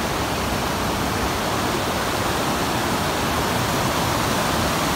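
Steady rush of whitewater rapids, the creek pouring and churning over a rock ledge, with no change in level.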